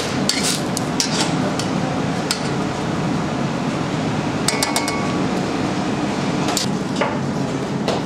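Metal tongs clicking and clinking against a stainless steel saucepan as meat is turned in broth, with a quick run of ringing metal clinks about halfway through, over a steady kitchen background noise.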